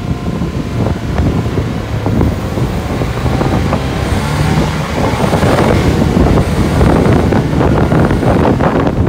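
Strong wind buffeting the microphone on a motorised outrigger boat, over the steady running of its engine and the splash of choppy water against the hull.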